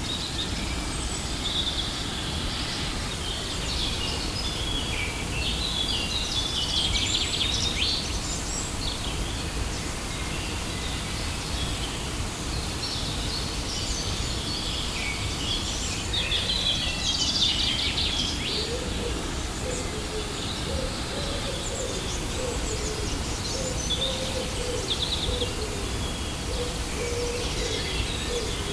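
Waterfall rushing steadily, with small birds chirping and twittering in several bursts over it. A low wavering call joins in the second half.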